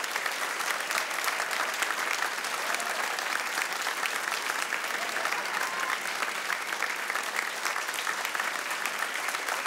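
Audience applauding steadily, a dense patter of many hands clapping without a break.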